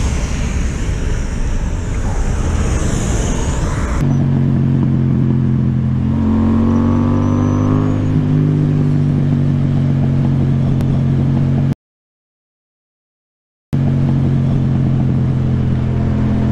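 Rushing wind and road noise for the first few seconds. After a sudden change, a Yamaha motorcycle's engine runs at road speed, rising in pitch as it accelerates about six seconds in. The sound cuts out completely for about two seconds near the end, then the engine is heard again.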